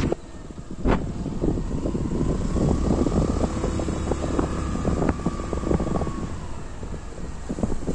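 Wind buffeting the microphone over the low drone of a motorbike being ridden along a road, with a sharp click about a second in.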